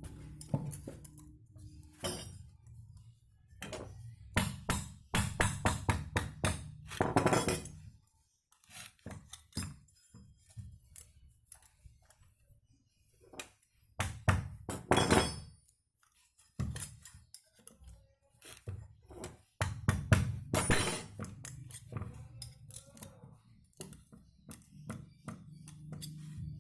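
Metal tools and scooter CVT pulley parts knocking and clinking during hand work, with several runs of quick knocks.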